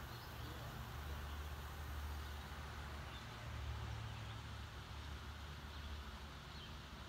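Low, uneven outdoor rumble, with a few faint high chirps now and then.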